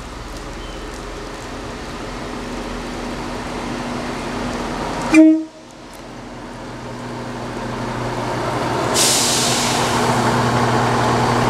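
ScotRail Class 170 Turbostar diesel multiple unit approaching and drawing alongside the platform. Its engine hum grows steadily, and a loud rushing hiss of wheels and air takes over from about nine seconds in as the train comes level. A short horn toot sounds about five seconds in.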